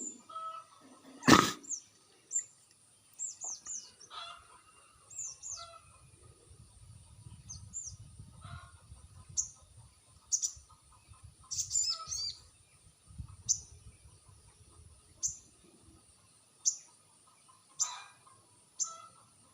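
Sogon bird calls from a lure recording: short, high, falling chirps repeated about once a second, with a few quicker clusters. There is a single loud sharp knock about a second in, and a low rumble under the calls in the middle.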